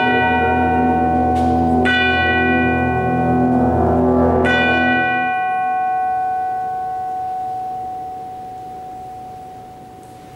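Symphonic concert band holding a soft low chord while tubular bells (chimes) are struck three times and ring over it. About five seconds in the chord stops, and one ringing bell tone fades slowly away.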